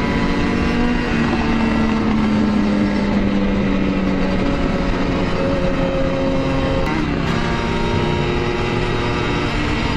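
Two-stroke Kawasaki Ninja RR engine running under way, its note sinking slowly over the first few seconds, then changing abruptly about seven seconds in, with steady wind rush throughout.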